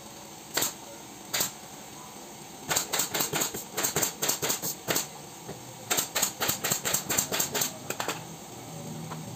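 Handheld staple gun firing staples through cardboard into a wooden sofa frame: two single sharp clicks, then two quick runs of about four to five shots a second.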